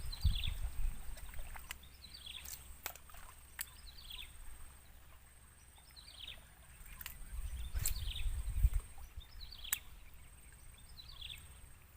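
A bird repeating a short, high, falling call about every second and a half. Scattered sharp clicks and bursts of low rumble on the microphone come and go, the rumble strongest at the start and again about eight seconds in.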